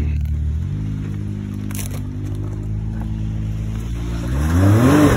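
Side-by-side UTV engine running at low revs while crawling over rock, then revving up and dropping back twice in the last second or so as the driver feeds it throttle to climb the ledge.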